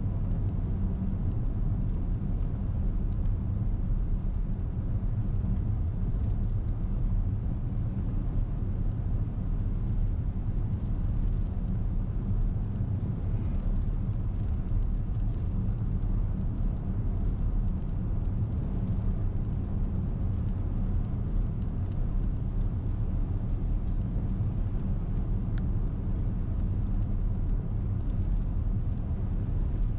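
Steady low rumble of a car driving on a wet road, heard from inside the cabin: engine and road noise with no change in pace.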